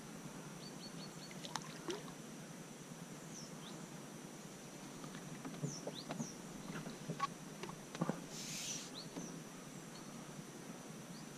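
Quiet water sounds and small clicks and knocks around a small boat while a hooked small carp is played on a rod, with a brief splash about two-thirds through and a few faint high chirps.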